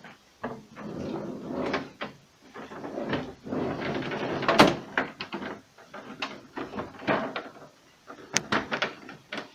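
Plastic interior cover of an LG refrigerator being worked loose and pulled off: clicks, scraping and rattling of plastic, with a sharp knock about halfway through.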